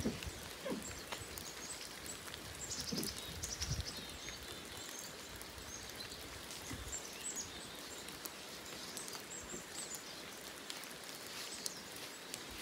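Steady rain falling in the forest as an even hiss, with a few soft thumps close to the microphone in the first four seconds and once more around seven seconds in.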